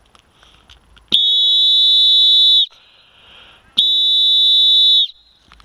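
Two long, steady, high-pitched signal blasts, each about a second and a half, with a short gap between them: the signal that starts the game.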